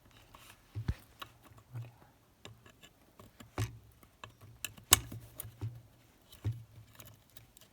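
Irregular small clicks and scrapes of a metal screw tip prying plastic locking pieces out of a car seat-belt mechanism, with one sharper click about five seconds in.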